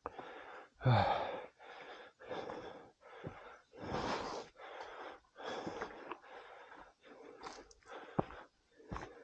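Heavy, rapid breathing of a man out of breath from exertion, about a dozen quick puffs in a row, the loudest a voiced exhale about a second in. A couple of sharp clicks near the end.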